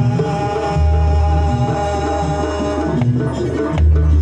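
Banyuwangi barong dance music: a gamelan-style ensemble led by hand drums beating a quick rhythm over metallic pitched percussion. A held melody note sounds in the first half, and a deep, long-ringing stroke lands about a second in and again near the end.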